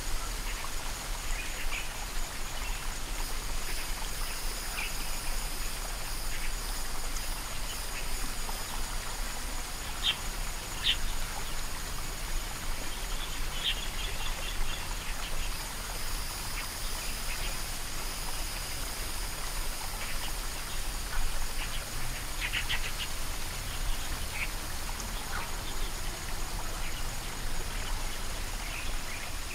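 Flooded rice-paddy ambience: a steady high insect drone, with short raspy animal calls now and then, clearest about a third of the way in and again after the middle.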